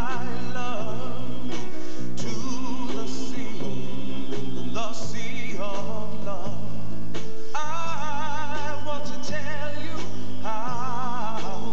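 Background music with a singer: a sung melody with vibrato over a steady instrumental accompaniment.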